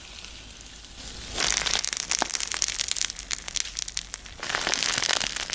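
Slime being squished and played with by hand: a dense run of crackling clicks and pops, softer at first and loud from about a second and a half in, with a brief lull near the end. Reverb and delay effects are added to the sound.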